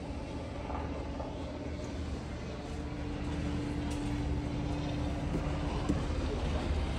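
Steady low rumble with a faint steady hum that comes in about two and a half seconds in and stops about six seconds in.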